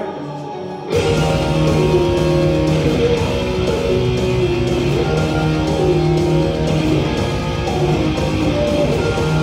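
Electric guitar played over a power-metal backing track. The track goes from a quieter intro to the full band with drums about a second in, and steady, held guitar notes carry on over it.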